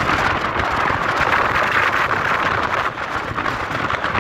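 Wind and water noise aboard a boat: a steady rushing hiss with no clear engine note, easing a little about three seconds in.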